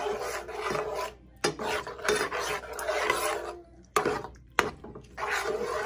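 A spoon stirring ground beef in tomato sauce around a ceramic-coated frying pan: a run of rasping scrapes about once a second, with two sharp clicks a little past the middle.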